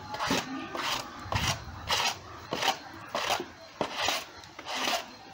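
A hand scrubbing brush rasping over a wet garment on a concrete floor while clothes are hand-washed, in repeated strokes a little under two a second.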